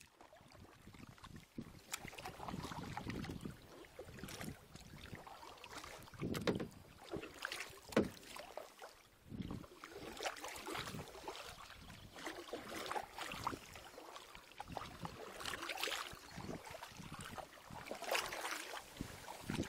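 Kayak paddling: a wooden double-bladed paddle dipping into the river and splashing, with water dripping and swishing between the irregular strokes.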